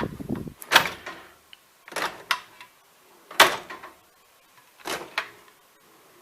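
Steel tool chest drawer on ball-bearing runners being shoved shut again and again, about six sharp metal bangs, some in quick pairs. The drawer won't close properly.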